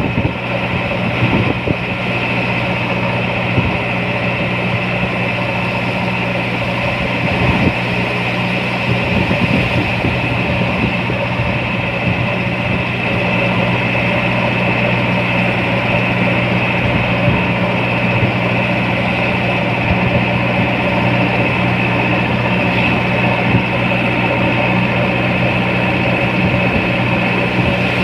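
JCB 3DX backhoe loader's diesel engine running steadily with an even hum, the engine speed holding constant.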